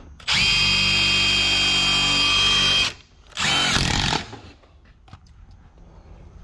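Makita cordless driver running a screw through the sheet-metal heater can into a 2x4: one long run of about two and a half seconds, then a shorter burst a moment later.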